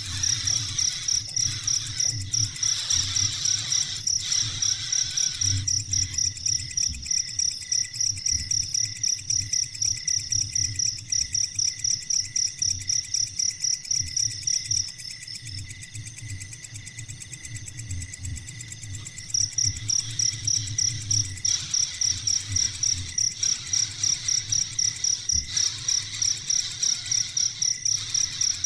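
Cricket chirping in a fast, even rhythm, falling silent for a few seconds midway and then starting again.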